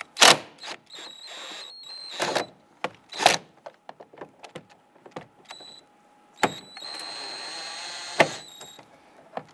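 A cordless power driver with a T40 Torx bit whirring in two short runs, backing out the screw under the door handle pull, with sharp clicks and knocks of the tool on the plastic door panel in between.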